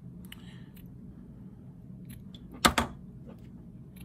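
Quiet room tone with a few light ticks, then one sharp click about two and a half seconds in, from small fly-tying tools being handled at the vise.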